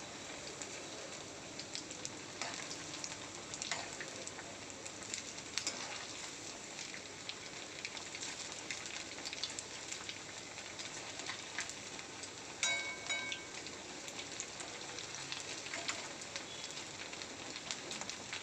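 Sabudana vadas deep-frying in hot oil in a kadai: a steady sizzle and crackle, with a few light clicks and a brief ringing note about thirteen seconds in.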